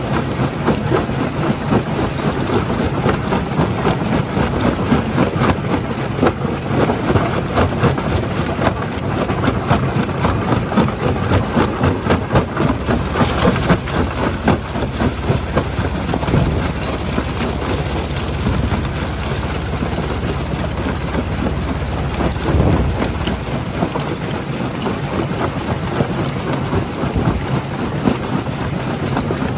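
Primary jaw crusher running, rock cracking and rattling in its jaws as a dense run of short knocks over a steady low machine drone.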